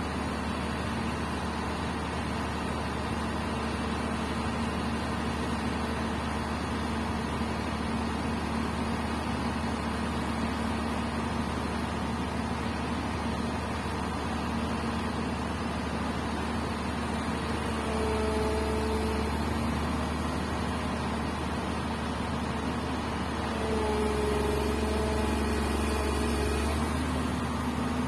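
Komatsu PC200 excavator's diesel engine running steadily, working up under load twice: briefly about two-thirds of the way in, and again for a few seconds near the end, each time louder with a higher tone over the engine hum.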